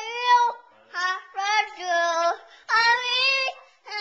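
A toddler singing in a high, clear voice close to the microphone: a held note breaks off, then after a short pause come a run of short notes and one longer wavering note.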